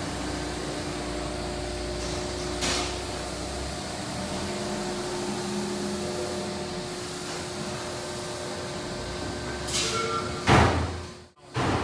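Hydraulic system of a Cincinnati 230-ton CNC press brake running with a steady hum as the ram cylinder is cycled. A deeper rumble stops about four seconds in, and there is a loud knock near the end.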